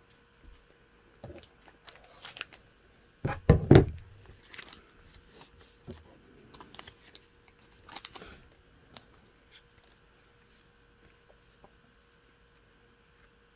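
A trading-card pack wrapper being torn open and crinkled, with the cards inside handled, in a string of short rustles; the loudest is a fuller rustle and bump about three and a half seconds in.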